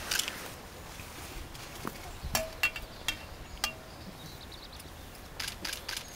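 Several sharp clicks and short metallic clinks at uneven intervals, some ringing briefly, with a quick run of them near the end, over a faint outdoor background.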